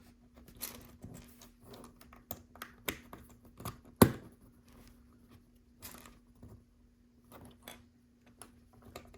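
Small plastic LEGO pieces clicking and rattling as they are handled and pressed together, with one sharp snap about four seconds in.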